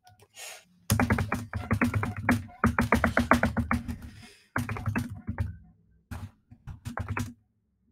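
Rapid typing on a computer keyboard, a fast run of loud key clicks with a couple of short pauses.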